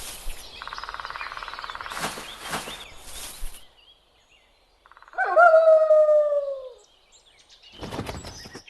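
Wolf howling once: a single drawn-out call of about two seconds that slowly falls in pitch, a little after the middle. It is preceded by a few seconds of rough, fluttering noise.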